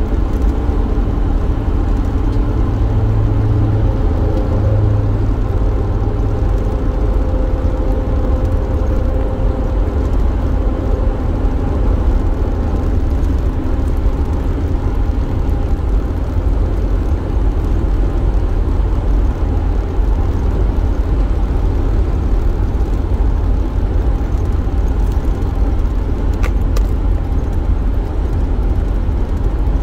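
A van being driven, heard from inside the cab: a steady low rumble of engine and road noise.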